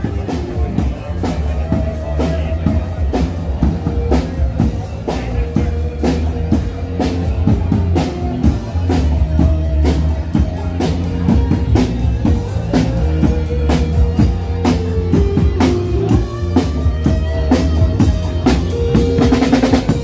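Live band playing: a drum kit keeps a steady beat over a strong bass line, with electric guitar notes.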